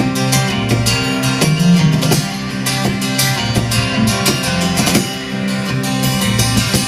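Live acoustic band music: strummed acoustic guitar with bass playing an instrumental passage between sung lines.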